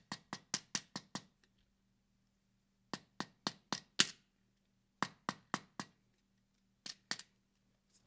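Rubber-tipped mallet tapping the roll pin back into an AR-15 carbine buffer (Geissele Super 42) held in an armorer's block. Sharp taps come in quick runs of four to six, about five a second, with short pauses between runs.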